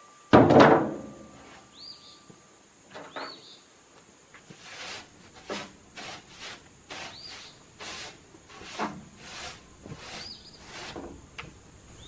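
Pine boards being handled on a truck bed: one heavy wooden thunk just after the start, then a string of lighter, irregular knocks of wood on wood. A bird chirps a few times in the background.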